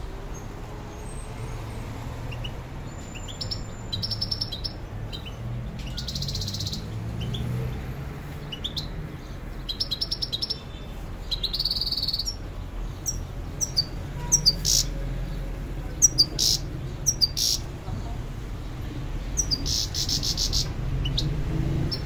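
Caged European goldfinch singing: bursts of quick twittering trills and sharp high chirps, over a low steady hum of street traffic.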